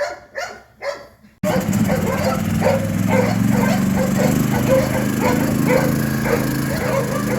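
A dog barks four times in quick succession, then a loud steady machine hum starts abruptly about a second and a half in, with short repeated sounds over it about twice a second.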